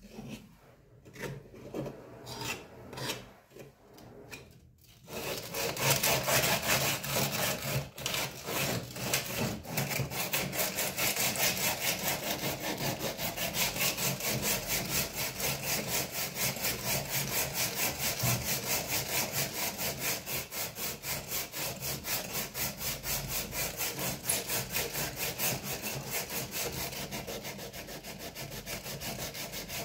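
Hand sanding of a steel bayonet scabbard coated in grey filler, an abrasive rubbed rapidly back and forth along it; the steady rasping strokes start about five seconds in. Before that, soft scrapes of a putty knife spreading the filler.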